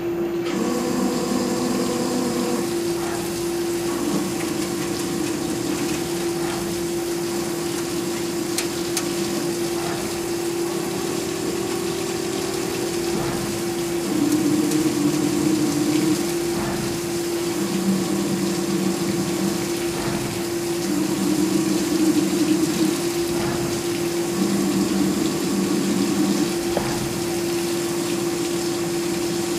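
CyberTec UltraTurn UT250 CNC lathe taking cuts under flood coolant. Coolant sprays and splashes with a steady hiss over a steady machine tone, and lower tones come and go every few seconds as the tool works through its passes.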